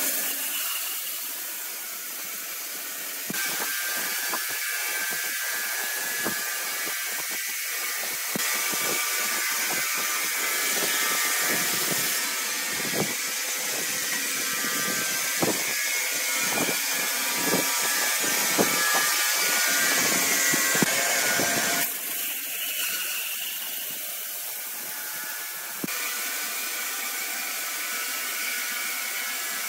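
Horizontal band sawmill running, its blade cutting through a large hardwood log with a steady high whine and hiss. Scattered sharp ticks come through in the middle stretch, and the sound changes abruptly a few times.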